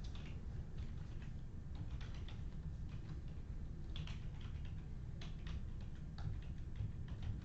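Typing on a computer keyboard: irregular key clicks, some in quick runs, over a steady low hum.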